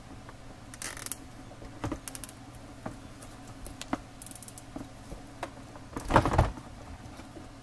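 Gloved hands fitting plastic fuel-pump parts: scattered light plastic clicks and taps, a couple of short runs of quick ratcheting clicks, and a louder crinkling rustle about six seconds in, over a low steady hum.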